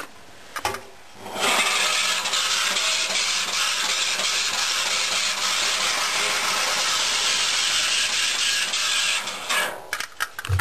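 Front-loading washing machine running with a loud, steady scraping noise that starts about a second and a half in and stops near the end, followed by a few sharp clicks. The owner blames the noise on a bra underwire caught in the drum.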